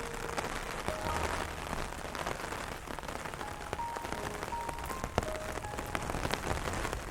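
Steady rain falling on a surface, with many small drop clicks. A few soft piano notes sound now and then, a run of them in the middle.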